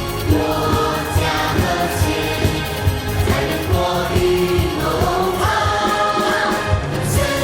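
Backing music with a steady beat and a group of voices singing.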